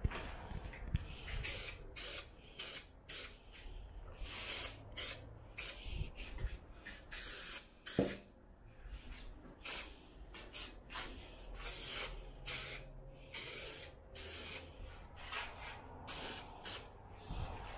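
Aerosol can of 3M Hi-Strength 90 spray adhesive hissing out in many short bursts, one after another, as upholstery fabric is coated. A single sharp knock about eight seconds in.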